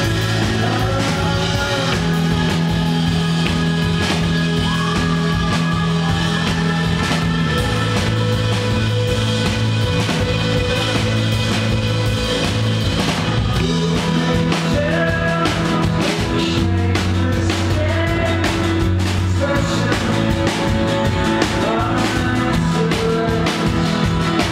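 Live rock band playing: drum kit, bass guitar and guitars, with a voice singing at times.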